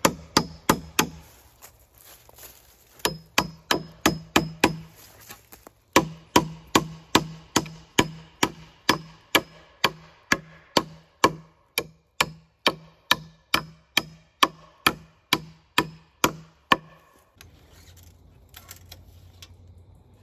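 Claw hammer striking the wooden boards of a deer tree stand ladder under repair, sharp ringing blows at about three a second. The blows come in three runs with short pauses, the longest run of about thirty strikes stopping about seventeen seconds in, then only a few faint knocks.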